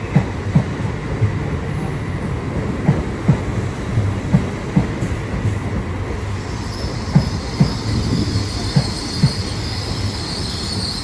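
LNER Class 801 Azuma electric train running slowly into the platform, its wheels knocking in pairs over rail joints. A high wheel and brake squeal comes in about six seconds in as it slows.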